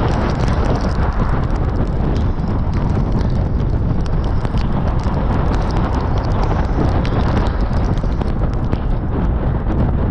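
Steady low rumble of wind buffeting the microphone and tyres on a wet road from a vehicle-mounted camera, with a rapid, irregular ticking of raindrops striking the camera.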